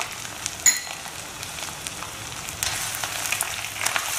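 Mutton, onions and ground spices sizzling in hot oil in a nonstick pot, with a steady hiss and light crackle. There is one sharp tap just under a second in. The frying grows louder and busier about two and a half seconds in, and a silicone spatula stirs the pot near the end.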